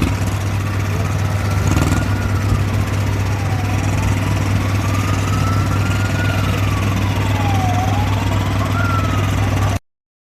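An engine running steadily at a constant speed, with a siren wailing over it, rising and falling slowly about every four seconds. All sound cuts off abruptly near the end.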